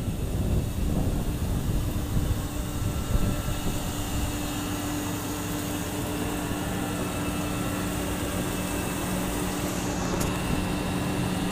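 Rooftop fume-scrubber exhaust blowers and ducting running with a steady mechanical hum. A low rumble is heaviest in the first few seconds, and two steady hum tones come in about two seconds in and hold.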